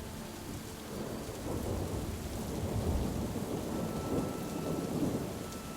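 Steady rain with a low rumble of thunder that swells about a second in and dies away near the end.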